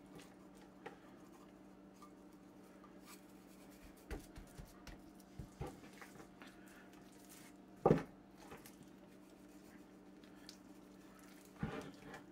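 A hand patting, pressing and shifting a raw, dry-rubbed pork shoulder on a wooden cutting board: soft pats and thumps now and then, the loudest about eight seconds in and a few more near the end. A steady low hum runs underneath.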